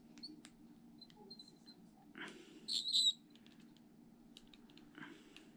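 A twisty glass blunt being twisted apart by hand: faint small clicks, then a short high squeak about three seconds in as its parts turn against each other.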